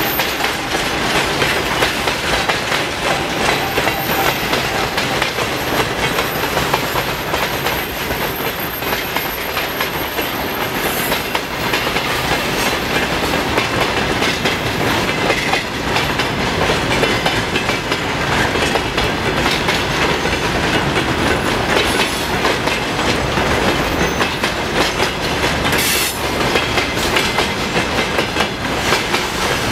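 Freight train wagons rolling past, their wheels clattering steadily over the rail joints.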